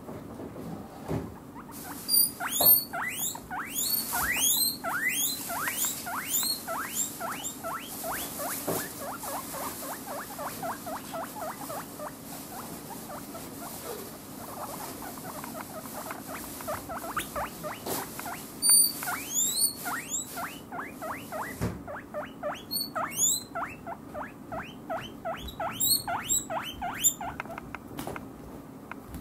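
Guinea pigs wheeking: loud, alarm-like squealing calls repeated several times a second, beginning about two seconds in and stopping near the end. It is the begging call they give when they expect vegetables.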